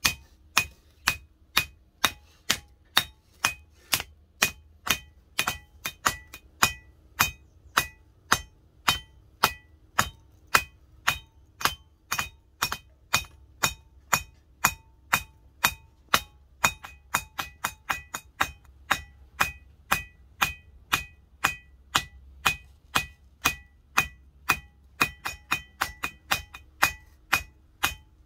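Hand hammer striking red-hot leaf-spring steel on an anvil, about two blows a second, each blow ringing with a clear metallic tone; the blows come a little quicker near the end. A faint steady low hum runs underneath.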